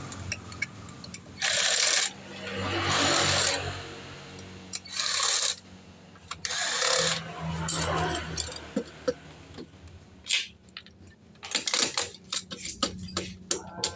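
Hand work on a scooter's CVT: four short hissing blasts of about a second each, then a quick run of sharp metallic clicks and clinks of parts and tools.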